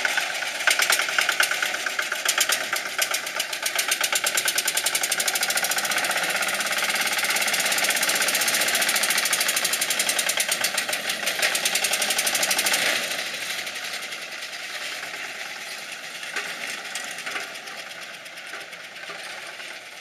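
Small engine of a homemade mini off-road car running hard, with a fast, even popping beat. It grows quieter about two-thirds of the way through as the car moves away.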